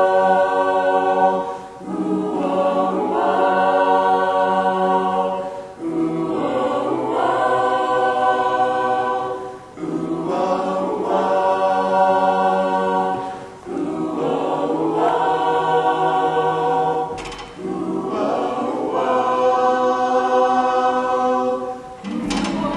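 A choir singing a cappella: sustained chords in phrases of about four seconds, each followed by a brief pause before the next.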